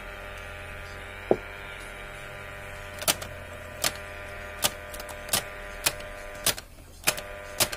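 Push-button switch bank of a Grundig Studio 3010 receiver being worked: one sharp click about a second in, then a steady run of clicks roughly every 0.7 s as the switches are exercised. Under them a steady mains hum from the set, which drops out briefly near the end.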